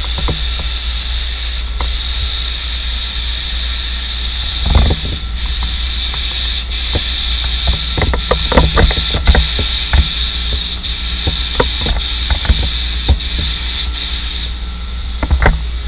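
Gravity-feed paint spray gun hissing as it sprays polyester primer, the trigger let off for a moment between passes about every second or so, before the spraying stops near the end. A steady low hum and a few sharp knocks sound under it.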